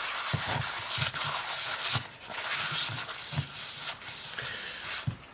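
Paper towel scrubbing and wiping a thinner-wet turbocharger housing: a rough rubbing hiss with soft knocks as the housing is handled.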